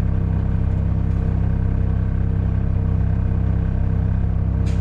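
Semi-truck diesel engine running steadily, a low even drone.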